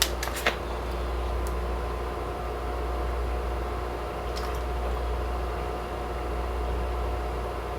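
Steady low mechanical hum of room machinery, with a faint constant tone over it and a few light clicks in the first second and a half.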